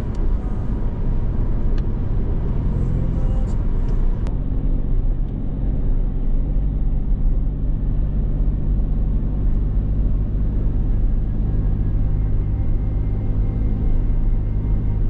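Steady low drone of a road vehicle travelling: engine hum and road rumble, with a couple of light clicks in the first few seconds.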